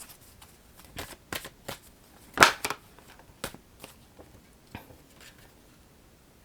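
Oracle cards being handled, turned over and laid down on a table: a scatter of light snaps and taps, the loudest about two and a half seconds in.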